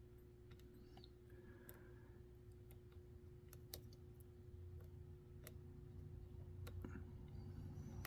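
Faint, scattered clicks of a hook pick working the spool and serrated pin stacks of a Master Lock deadbolt under tension, the lock held in a false set. A steady low hum runs underneath.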